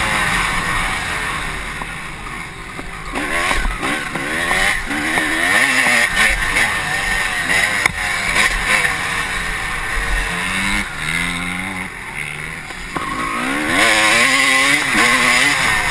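Honda CR250 motocross bike's two-stroke single-cylinder engine under hard riding, revving up and down repeatedly as the rider works the throttle and gears. The engine eases off about two seconds in and again about twelve seconds in, then climbs in pitch again each time.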